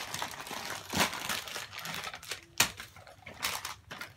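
Crinkling and rustling of paper confetti and small plastic bags as hands rummage inside a cardboard Loot Llama box, with sharper crackles about one second and two and a half seconds in.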